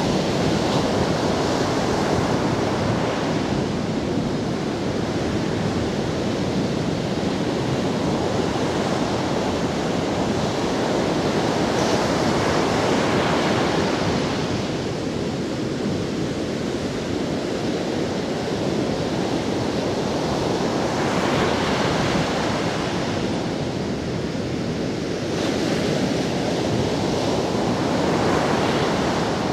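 Ocean surf breaking on a sandy beach: a continuous wash of waves that swells and brightens each time a breaker comes in, several times over.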